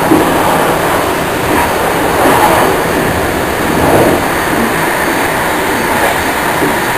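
InterCity passenger train running through a tunnel, heard from inside its last carriage: loud, steady wheel-and-rail running noise with mild swells.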